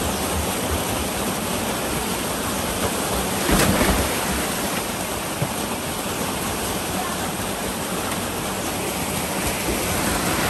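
Steady rush of a river pouring through a narrow rock channel, with one louder splash about three and a half seconds in as a person jumps into the pool.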